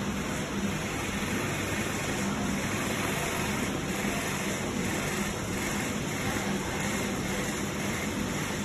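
Electric hospital bed's backrest actuator motor running steadily as it raises the head section, a constant low hum over hiss.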